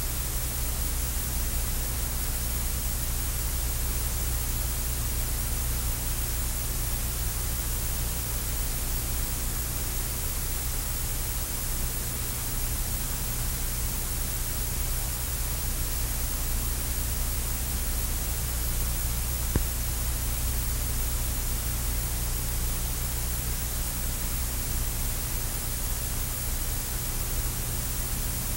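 Steady hiss with a low electrical hum underneath: the noise floor of an old videotape recording over silent title cards. One faint click about twenty seconds in.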